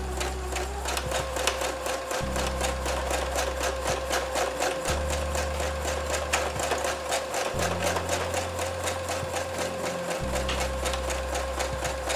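Brother SQ9185 computerized sewing machine running fast in a straight stitch, the needle striking in a quick, even rattle over a steady motor whine. It is free-motion stitching with the feed dogs lowered, and the spring-action quilting foot lifts and drops with each needle stroke.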